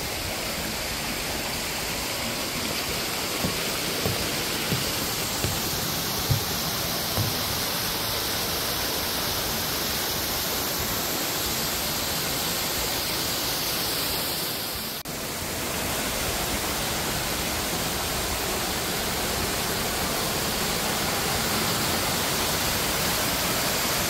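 Waterfall: a steady, dense rush of falling water, with a brief dip about fifteen seconds in.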